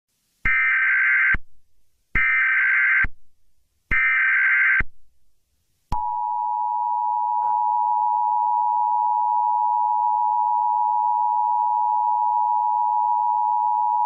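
Emergency Alert System tones: three short electronic data bursts of about a second each (the SAME header), then the steady two-tone attention signal starting about six seconds in. The sequence heralds an emergency alert message, here an excessive heat warning.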